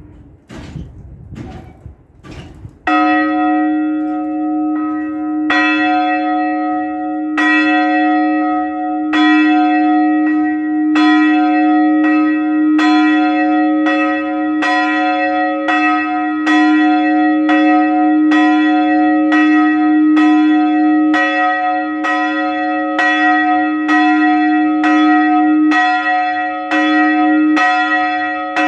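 Church bells swinging in full peal (plenum), heard from inside the belfry. A few knocks come first, then the first bell strikes about three seconds in. The strikes come quicker and overlap as more bells join, over a steady ringing hum.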